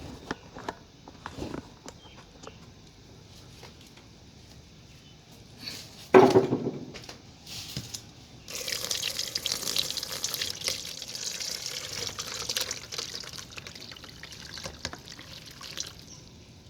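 A pot knocks loudly once about six seconds in, then the hot water and boiled cocoyam leaves are poured out of it, splashing steadily for about seven seconds before tailing off.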